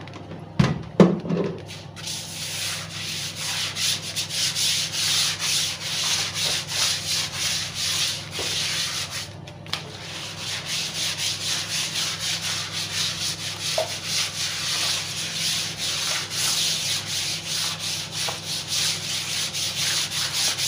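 Hand brush scrubbing a wet, soapy plastic floor sheet in quick back-and-forth strokes, about two a second. The strokes start about two seconds in, after a few knocks, and pause briefly about nine seconds in.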